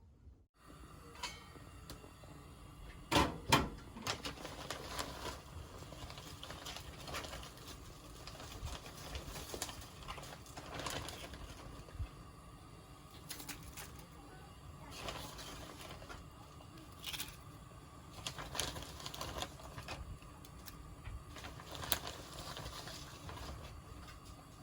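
Irregular light clicks and knocks, a few louder knocks at about three seconds in and again near the end, over a faint steady hum.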